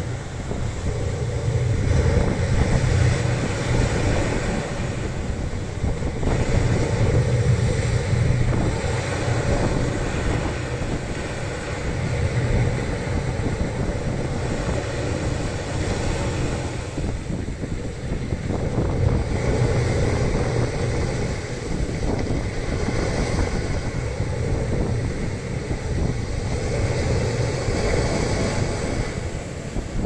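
Sea waves washing on the shore, rising and falling every few seconds, with wind buffeting the microphone.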